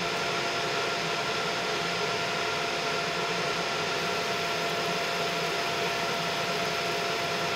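Cloudray QS-50 50 W fiber laser engraver running a slow marking pass on steel: a steady whirring hum with a faint steady tone.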